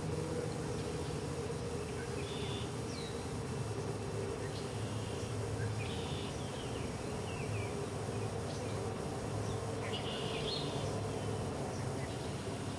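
Mallard ducklings peeping in short, high calls, in scattered clusters, over a steady low hum.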